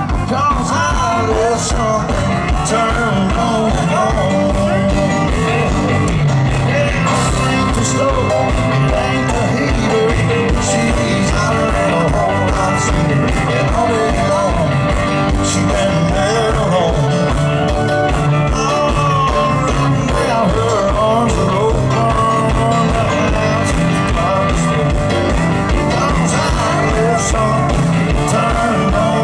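Live country-rock band playing an instrumental break through a concert PA: electric guitar lines over bass and a steady drum beat.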